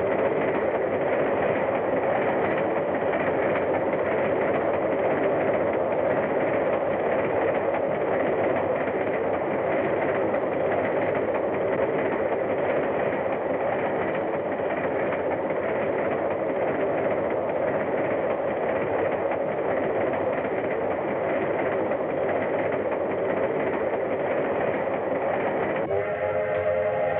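Steam train running at speed, a steady rushing noise from the locomotive and cars on the rails; a train whistle starts sounding near the end.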